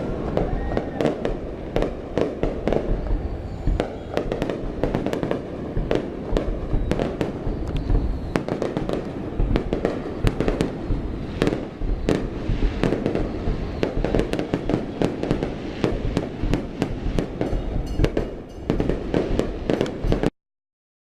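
Fireworks display: aerial shells bursting in a rapid, continuous barrage of sharp bangs and crackles over a heavy low rumble. The sound cuts off abruptly near the end.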